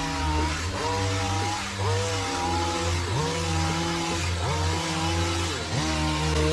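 Background music: a gritty, distorted lead with sliding notes over a steady bass line.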